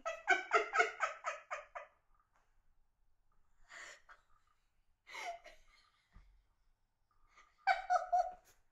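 A woman laughing hard. A quick run of laughs comes first, then gasping breaths, and another short burst of laughter near the end.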